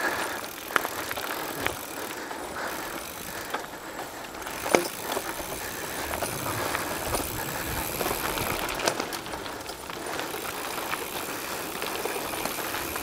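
Mountain bike rolling over a rough dirt trail: a steady rolling noise with scattered rattles and knocks as the bike goes over bumps.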